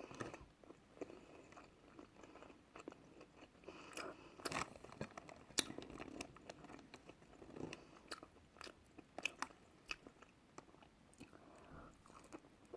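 A person chewing and biting chicken wings up close, with soft mouth sounds and small clicks at irregular intervals. A few sharper bites come about four and a half and five and a half seconds in.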